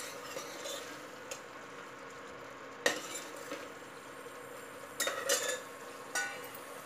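A steel ladle stirring and scraping a thick masala frying in an aluminium pressure cooker, over a steady low sizzle. The ladle knocks sharply against the pot about three seconds in, and again a few times near the end.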